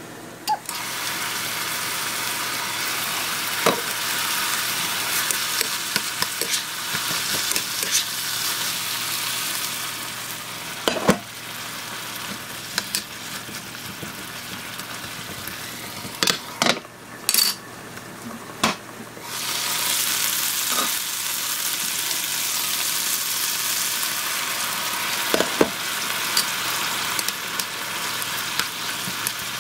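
Pork and onions sizzling in sauce in a frying pan while a plastic spatula stirs them, with scattered clicks and scrapes of the spatula against the pan. The sizzle grows loud just after the start, drops out for a couple of seconds about two-thirds through, then comes back.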